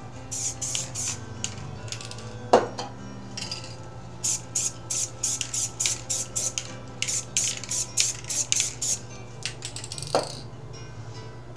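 An aerosol spray-paint can hissing in short bursts, several a second, as strokes are sprayed onto the painting, with a sharp metallic clink about two and a half seconds in and another near the end. Soft background music plays throughout.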